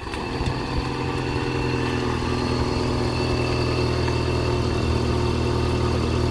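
Vauxhall Astra H engine settling into a steady idle just after the car comes to a stop. The car has a blown exhaust.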